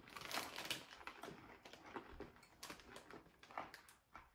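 Faint, irregular crunching and crinkling while snacking: small hard caraway pretzel bites being chewed, and a plastic snack wrapper being handled.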